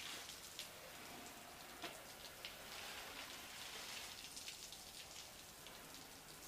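Garden hose spray nozzle spraying water onto the side of an aluminum boat hull. It makes a steady spatter with many small drip ticks as the water runs off onto plastic sheeting below.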